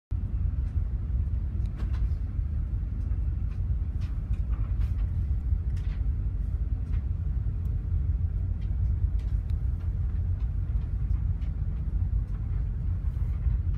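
Steady low rumble aboard a container ship under way, with wind buffeting the microphone.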